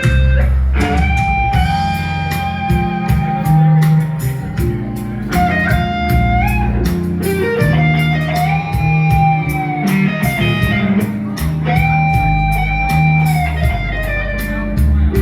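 Live band playing blues-rock: a lead line of long held notes that slide between pitches, over electric guitar, bass guitar and a steady drum beat.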